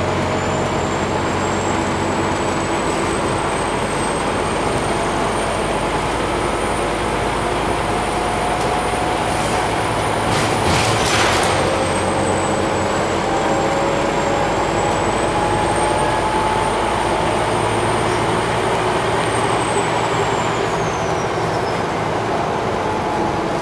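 Inside a Scania OmniCity single-deck bus under way: the steady drone of its nine-litre five-cylinder diesel engine and drivetrain, with whines that slowly rise and fall in pitch. There is a brief hiss about halfway through.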